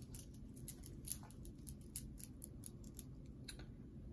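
Faint, irregular small clicks and clinks of a chunky piece of jewelry being handled and turned over, its metal parts and faceted stones knocking lightly together; the clicks stop near the end.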